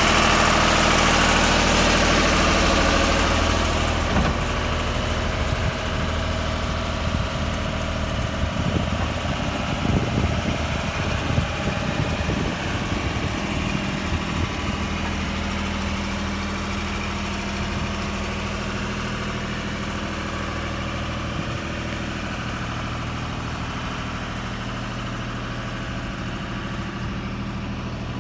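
Diesel engine of a 2014 Genie Z45/25JRT articulating boom lift idling steadily. It is louder for the first few seconds, then quieter from about four seconds in.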